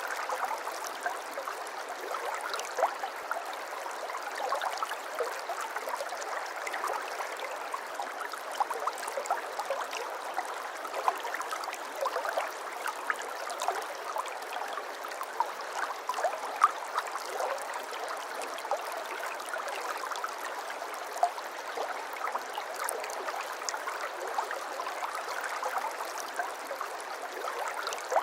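Water flowing and trickling in a small stream, a steady babble full of small irregular splashes and gurgles.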